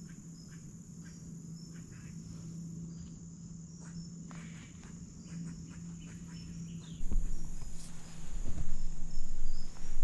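Insects chirring steadily on one high pitch, with scattered faint ticks. About seven seconds in, louder low rumbling and rustling close to the microphone take over.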